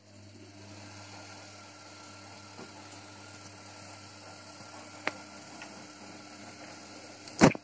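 Gorenje WA 50050 front-loading washing machine running with a steady motor hum as the drum turns the laundry. A light click comes about five seconds in and a sharp knock near the end.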